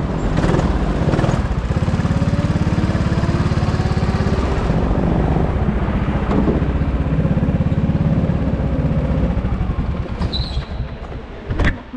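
Rental go-kart's small petrol engine running close by, its pitch rising and falling with the throttle, then dropping away about two seconds before the end as the kart slows. A single sharp knock near the end.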